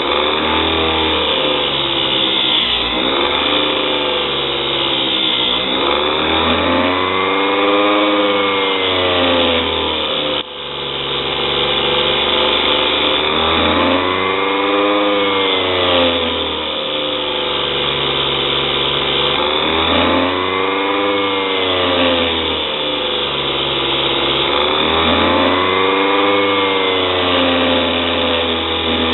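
Homemade mini grinder's electric motor running steadily while a small lathe bit is ground against its wheel. A pitched whine rises and falls several times over the run.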